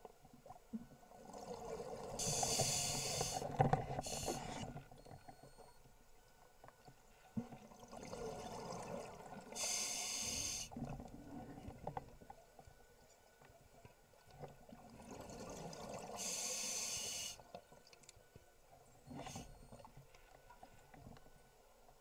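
Scuba diver breathing through a regulator underwater: three breaths about seven seconds apart, each a sharp hiss with bubbling around it.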